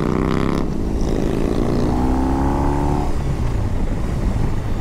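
BMW R18's big boxer twin, breathing through a Jekill and Hyde valved exhaust, accelerating under throttle. Its pitch rises, breaks off briefly about half a second in as it changes up a gear, climbs again, then levels off about three seconds in.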